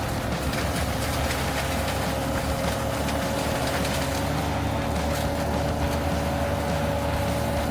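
A heavy forestry machine running steadily under load, its engine rumbling low with a constant high whine over it.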